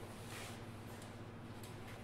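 Faint room tone: a steady low hum, with a brief soft brushing sound about half a second in and a light tick near the end.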